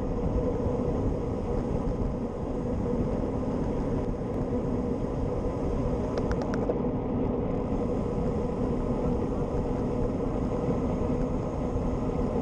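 Steady rush of wind buffeting a handlebar-mounted action camera's microphone, mixed with the road bike's tyre noise on the tarmac while riding. A brief cluster of clicks about six seconds in.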